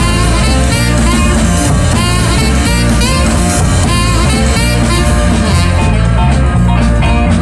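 A 1960s rhythm-and-blues band recording playing: a full band with electric guitar, at a steady, loud level.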